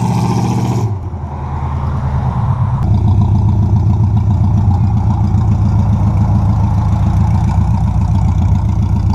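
1985 Chevy C10 pickup's engine running: the revs fall away about a second in, then pick back up just before three seconds and hold steady.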